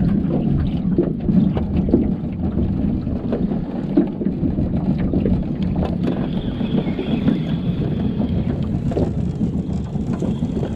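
Boat motor running steadily under wind buffeting the microphone, with scattered light knocks. A faint, thin high tone comes in about halfway through and holds.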